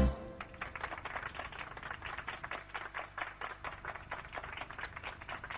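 Sound effect from a toy sound machine's speaker: rapid, irregular clicking, several clicks a second, that keeps going.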